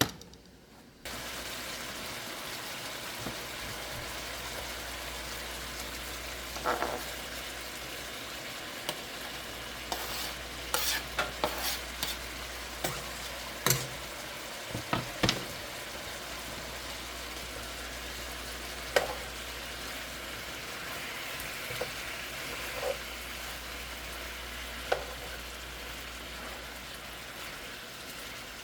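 Food sizzling steadily in a hot frying pan, starting suddenly about a second in. A utensil stirring it gives scattered clinks and scrapes, most of them in the middle.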